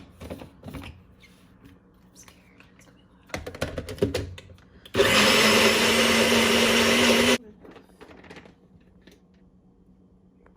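An electric blender runs for about two and a half seconds, switched on and off abruptly: a loud steady whir over a steady motor hum. A few clattering knocks come shortly before it.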